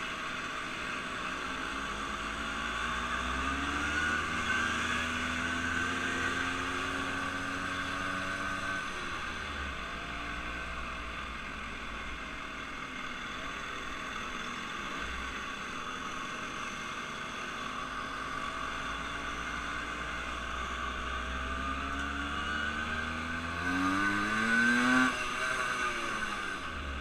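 Vehicle engines running and changing speed, their pitch rising and falling, with one passing close and loud about 24 seconds in.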